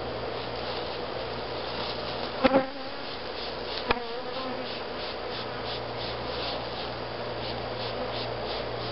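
Package honeybees in a top bar hive buzzing steadily. Two brief louder sounds cut through, about two and a half and four seconds in, the second a sharp click.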